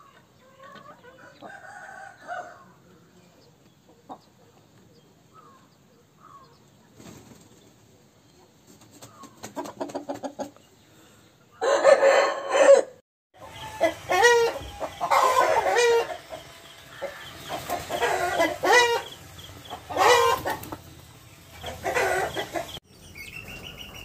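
Aseel chickens clucking softly, then a run of loud, wavering calls about every one to two seconds in the second half.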